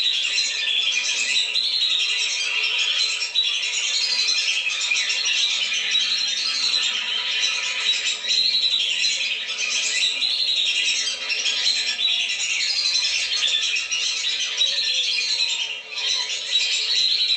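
A flock of whistling ducks (belibis) calling continuously, many high whistled calls overlapping into a dense chorus, as used in a lure recording to draw the birds down.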